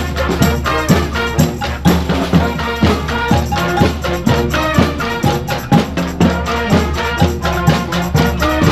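Live street band of horns and drums playing an upbeat dance tune, with held horn lines over a steady drum beat.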